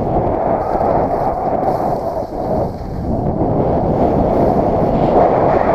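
Wind buffeting a skier's action-camera microphone while skiing downhill: a loud, steady rumbling rush that dips briefly a little after two seconds.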